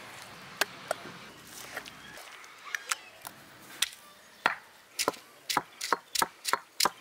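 Heavy stone roller of an ammi striking the stone grinding slab as ginger is crushed under it: a few scattered knocks at first, then a run of sharp knocks about two a second from midway.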